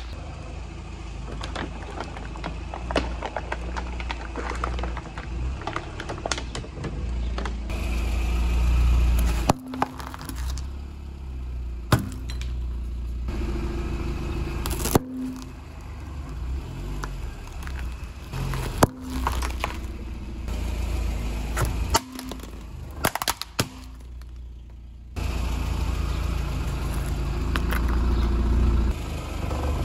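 A car rolling slowly over soda bottles and other objects: a low rumble of engine and tyres with crackling and crunching, and several sharp loud pops as things burst under the wheels. The sound changes abruptly several times.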